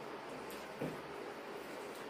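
Quiet eating sounds: hands mixing rice and curry on steel plates over a steady background hiss, with one brief soft sound a little under a second in.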